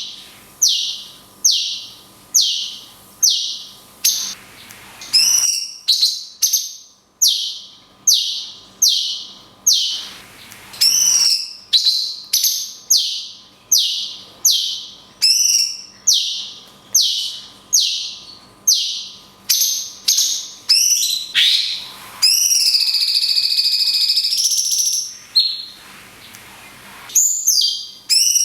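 Cucak cungkok singing: a long run of short, loud falling whistles, about three every two seconds, broken near the end by a longer held note.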